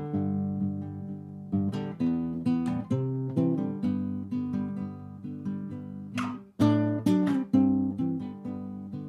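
Background music on acoustic guitar: plucked and strummed chords in a steady rhythm, with a brief break about six and a half seconds in.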